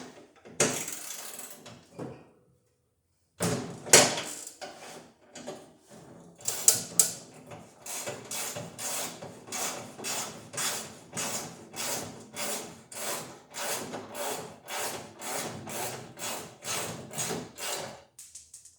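Ratchet wrench with a socket and extension worked back and forth in even strokes, about two a second, loosening a fastener on a John Deere 175 mower; the strokes stop near the end.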